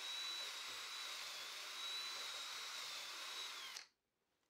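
Power drill running a Forstner bit into a wooden workbench top to bore a bench dog hole: a steady high motor whine over the noise of the bit cutting wood, stopping suddenly near the end.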